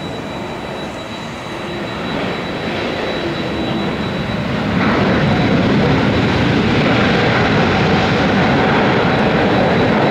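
Jet engines of a Boeing 777 airliner rolling out on the runway just after landing. A steady roar with a faint high whine over it swells sharply about five seconds in and stays loud.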